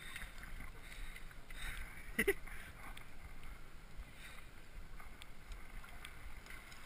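Faint outdoor wind and water noise with small handling knocks from rod and gear, and a brief voiced sound about two seconds in.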